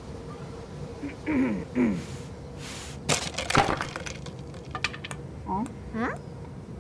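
Cartoon sound effects: two short falling vocal sounds, then a shovel-load of rubbish scraped and dumped with a burst of clattering knocks and cracks about three seconds in, the loudest part, followed by two short rising squeaks near the end.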